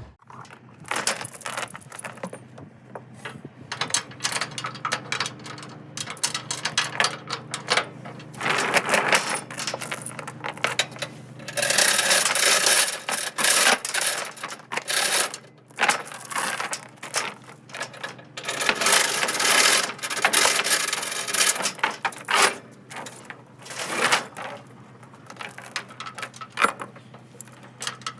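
Steel tie-down chain rattling and clinking as it is run through a machine's tie-down eyes and pulled across the trailer, with two longer spells of rattling about twelve and twenty seconds in.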